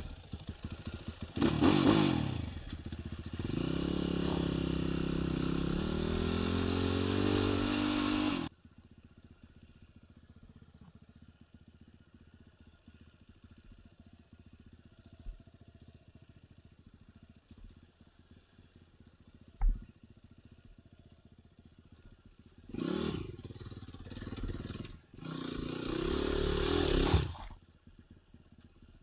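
Enduro dirt bike engine revving hard for about eight seconds, its pitch climbing, then cutting off suddenly. A faint low engine sound follows with a single sharp click, and near the end the engine revs again in two bursts.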